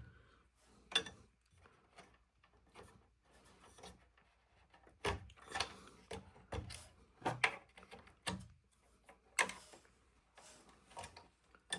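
Wire connectors being worked loose from a NordicTrack treadmill's motor controller board: irregular quiet plastic clicks and rubbing as the plugs are tugged and handled.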